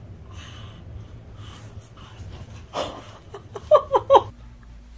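Repeated breathy, wheezy huffs, then, about three and a half seconds in, a baby's three short, high-pitched squeals of laughter.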